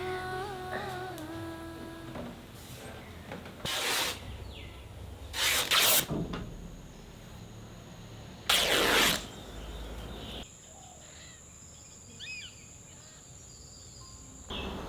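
A short hummed melody fades out, followed by three short, loud bursts of hissing noise a couple of seconds apart. Later a steady high insect whine starts, with a few faint bird chirps.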